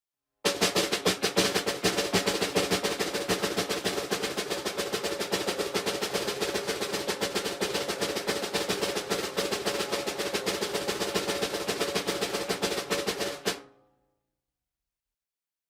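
A fast, continuous drum roll, steady for about thirteen seconds, that stops abruptly.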